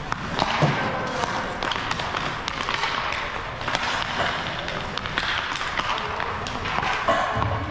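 Ice hockey practice: pucks and sticks knocking and clacking sharply every so often, over a steady rink noise.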